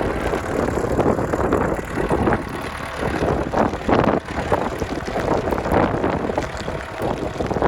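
Versatile 150 four-wheel-drive tractor's engine running as the tractor drives through snow, with an uneven, gusty rumble.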